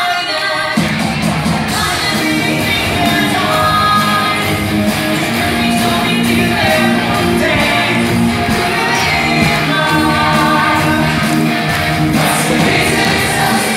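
Live stage-musical performance: voices singing held notes over a full band backing, echoing in a large hall and recorded on a phone.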